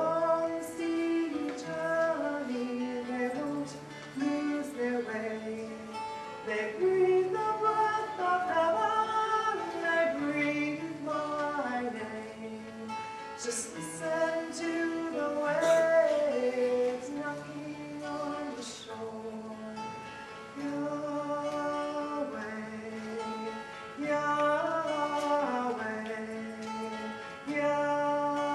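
A woman singing a praise song, accompanying herself on an acoustic guitar.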